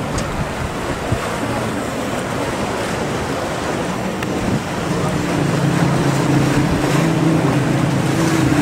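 Wind and choppy sea water rushing steadily, with a boat's engine joining in as a steady low drone from about halfway through.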